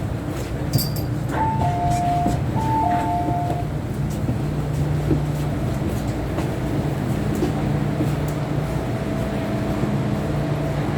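MTR M-train carriage interior noise, a steady low hum of the train. About a second and a half in, a two-note high-low electronic chime sounds twice.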